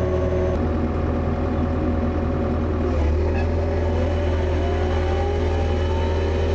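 Bobcat E55 mini excavator's diesel engine running under load with a steady low drone, while the hydraulic motor of a 42-inch Blue Diamond rotary brush cutter spins its blades. The auxiliary hydraulics are running to charge the lines and cutter motor with fluid. In the second half a faint whine rises slowly in pitch.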